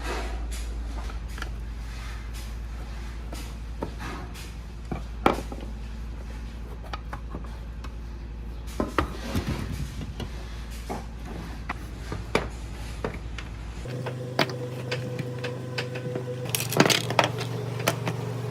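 Metal parts clinking and knocking as they are handled in the workshop, over a steady low machine hum that shifts to a higher-pitched hum about fourteen seconds in.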